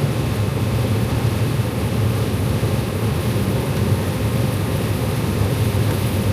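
Combine harvester running steadily while harvesting corn: a continuous low drone of engine and threshing machinery.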